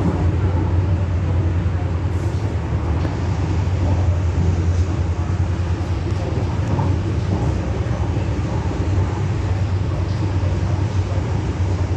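Interior of a Metro Cammell electric multiple unit on the MTR East Rail Line, the train under way: a steady rumble with a constant low hum, even in level throughout.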